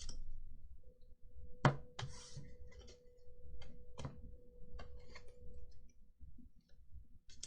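Trading cards being handled and set down on a table: a string of irregular sharp clicks and taps, the loudest a little under two seconds in, with a brief rustle of card stock just after it.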